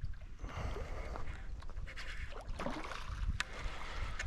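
Water splashing and gurgling as a hooked barramundi thrashes near the surface, with irregular small clicks over a steady low rumble.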